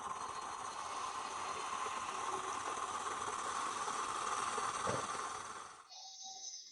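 Steady hissing rush from a coffee-making sound effect, with a soft thump about five seconds in; it cuts off about six seconds in.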